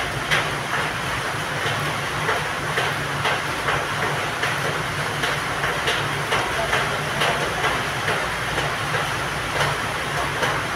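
Light metallic clicks and knocks, a few a second and irregular, as a greased CV joint and its rubber boot on a drive shaft are worked by hand, over a steady low hum and hiss.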